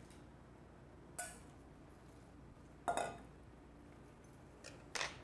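Three short clinks of kitchen utensils and dishes knocking together, a little ringing after each; the middle one, about three seconds in, is the loudest.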